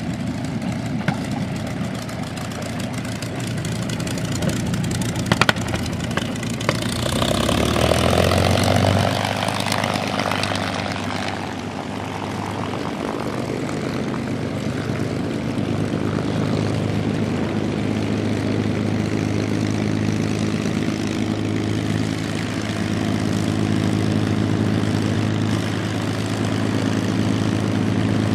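P-51 Mustang's Merlin V-12 piston engine idling with a steady hum. A louder rush swells for a few seconds about a quarter of the way in, then the engine settles back into a steady idle that grows a little louder near the end.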